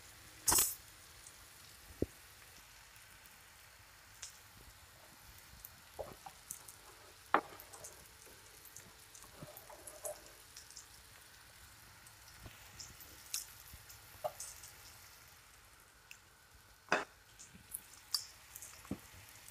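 Faint sizzle of meatballs frying in oil, with scattered light clicks and taps of a wooden spoon against the pans. A sharper clatter about half a second in comes as dry spaghetti goes into the steel pot.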